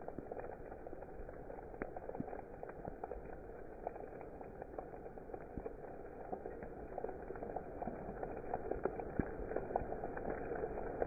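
Steady rain falling, a continuous hiss sprinkled with many separate drop taps, growing slightly louder toward the end.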